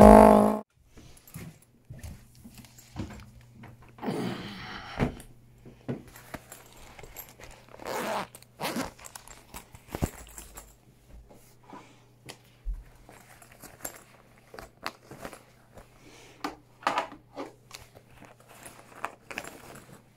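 A song cuts off half a second in. Then comes handling noise from a camera held close: scattered rustles, clicks and a few knocks, over a faint steady hum.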